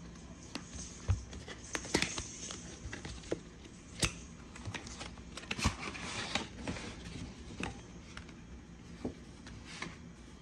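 Paperboard and paper packaging being handled: irregular sharp clicks, snaps and crackles with soft rustling between them as the tear tabs on the box's outer sleeve are pulled and the sleeve is opened.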